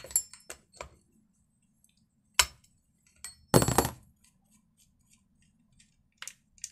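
Scattered metal clicks and clinks of a T-handle socket wrench on the guide-bar nuts of a chainsaw as the bar is taken off. The loudest is a short clatter about three and a half seconds in, as the wrench is laid down on the wooden bench.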